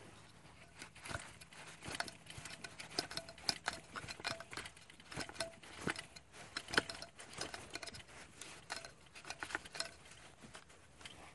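Handling noise from a Minelab E-Trac metal detector's plastic search-coil mount as the coil's mounting bolt is fitted and turned by hand. The sound is a steady run of irregular small plastic clicks and rubbing.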